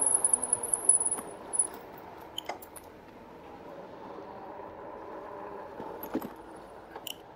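Road traffic heard from a moving bike: a vehicle's engine noise, loudest for the first second or so and then fading to a steady lower road noise, with a few sharp clicks.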